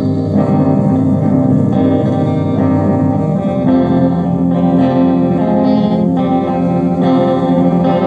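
Guitar playing an instrumental passage of a song, strummed chords changing about once a second.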